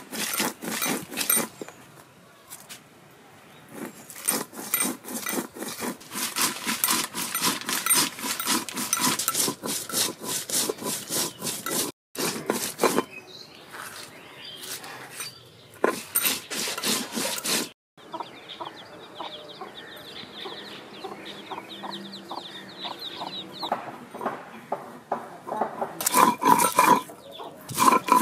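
Stone roller worked back and forth on a flat grinding stone (sil-batta), crushing dried red chillies and spices into a wet paste: quick rubbing, knocking strokes, about three to four a second, in several runs with quieter gaps between.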